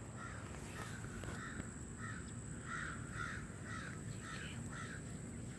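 Distant crow cawing: a run of about nine short, harsh caws about half a second apart that stops about five seconds in, over a faint steady high-pitched tone.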